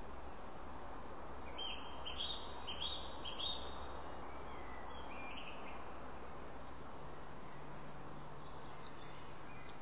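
Steady background hiss with a bird calling a run of four short chirps in the first few seconds, then a few fainter, higher notes.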